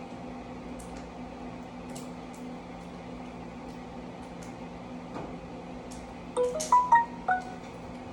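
Steady low electrical hum with faint small clicks, then near the end a short electronic chime of several quick notes at different pitches.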